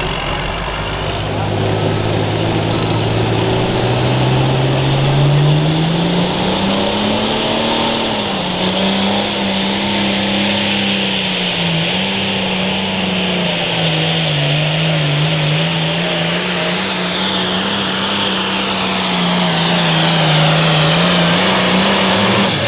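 Limited pro stock pulling tractor's turbocharged diesel engine working at full load down the track. Its pitch climbs over the first several seconds, then holds high and wavers through the pull.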